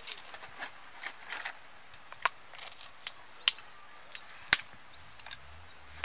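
Sharp clicks and taps of small plastic spice containers and their lids being handled, about half a dozen at irregular intervals, the loudest about four and a half seconds in.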